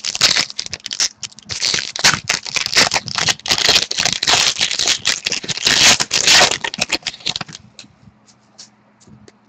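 A pack of hockey trading cards being opened and handled: crinkly rustling and rattling of the wrapper and cards, stopping about seven and a half seconds in.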